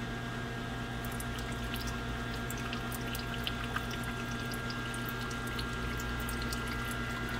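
Brake fluid with air bubbles trickling from an opened rear brake caliper bleeder screw into a catch cup, under pressure from a pressure bleeder, with many small scattered splashes and crackles over a steady low hum. The bubbles are air being purged from newly fitted brake lines.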